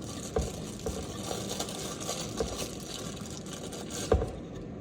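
Faucet parts being handled: scattered light clicks and knocks over a steady background hiss, with a louder knock about four seconds in.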